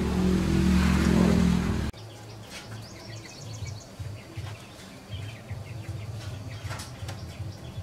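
A steady low hum that cuts off about two seconds in, followed by quiet outdoor ambience with birds chirping and light clicks of small metal engine parts being handled.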